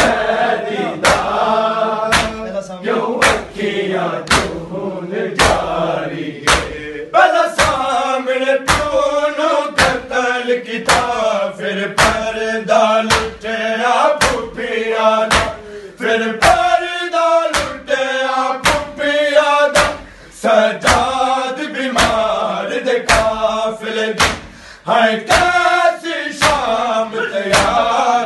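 Men chanting a Punjabi noha lament in unison. Through it runs a steady beat of open hands striking bare chests in matam, about two strikes a second.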